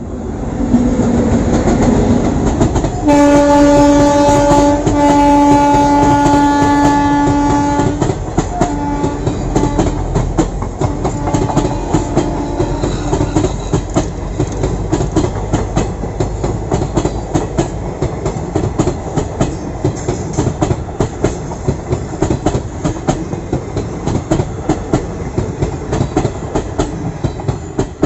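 WAP-7 electric locomotive passing and sounding its horn in a long blast broken once, then shorter, fainter toots. This is followed by a steady clickety-clack of the parcel vans' wheels over rail joints as the train runs by.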